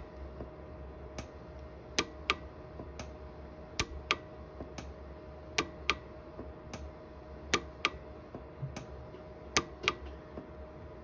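Orion 150s pulse arc micro welder firing a string of single weld pulses into a silver ring. Each pulse is a short, sharp click, about fifteen of them, spaced irregularly half a second to a second apart, over a faint steady hum. Each click is one shot fusing silver fill wire into a pit in the ring.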